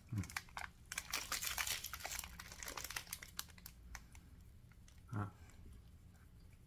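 Snack wrapper crinkling and tearing open in quick crackly bursts, busiest in the first three seconds and then thinning out.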